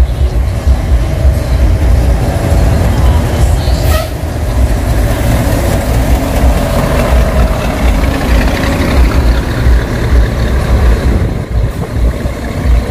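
Large decorated tour buses running, a heavy low rumble throughout, with a short sharp sound about four seconds in.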